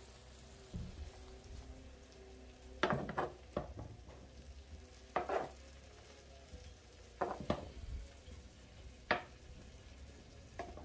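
Metal kitchen tongs clacking against an electric frying pan and a ceramic slow-cooker crock as pieces of browned diced beef are moved across, a few short sharp clacks every second or two. Under them the beef sizzles faintly in the pan.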